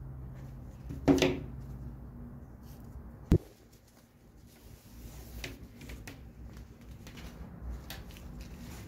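Handling noises of gloved hands working on a lamp socket and rope: a loud rough knock about a second in, a single sharp click a little after three seconds, then soft scattered taps and rustles.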